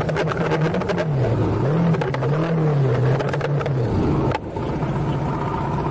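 A vehicle engine whose note rises and falls several times, with a lot of rattling and clicking over it. Just over four seconds in it dips briefly, then holds a steady note.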